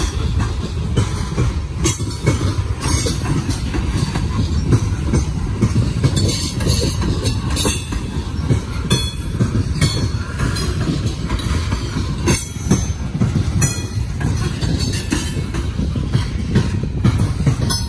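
Coal train's freight cars rolling past on steel wheels: a steady, loud low rumble with irregular clacking over the rail joints and brief high-pitched wheel squeals.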